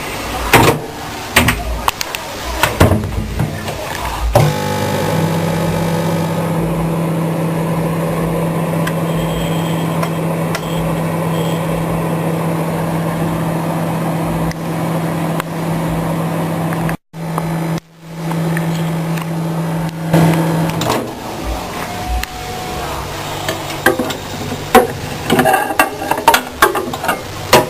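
Electric motor of a chips-making machine running with a steady hum for about sixteen seconds, briefly cut twice near the end of the run. Clicks and knocks of handling the machine come before and after it.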